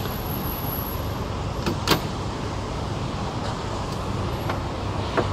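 The bonnet of a Mitsubishi Lancer Evolution 6.5 Tommi Mäkinen Edition being released and lifted: a sharp latch click about two seconds in, then a few lighter clicks and knocks as the bonnet is raised and propped, over a steady low rumble.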